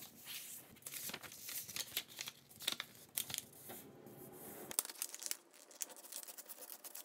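A sheet of brown paper rustling and crackling as it is slid, folded over along its diagonal and creased flat by hand, with sharp little crackles at each press.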